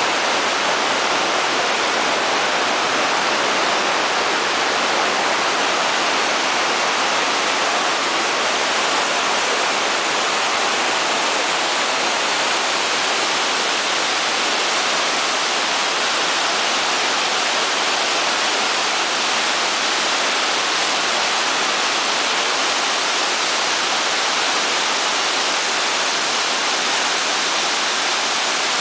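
Salto San Martín waterfall at Iguazu Falls: a loud, steady, unbroken rush of falling and churning water.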